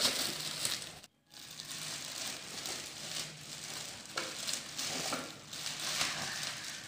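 Thin clear plastic bag crinkling and rustling as it is handled and pulled off a plastic revolving spice rack, with a brief break about a second in.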